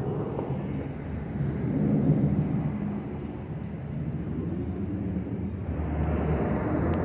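Twin-engine jet airliner climbing overhead after takeoff: a steady low rumble that swells about two seconds in.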